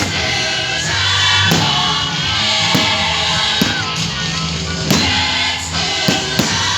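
Music with singing voices, with several sharp thumps every second or so.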